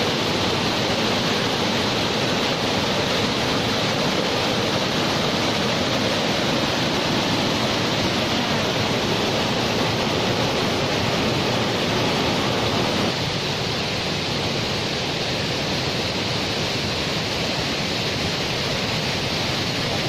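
Rushing white water of a waterfall cascading over rock slabs: a loud, steady rush of water, slightly quieter from about thirteen seconds in.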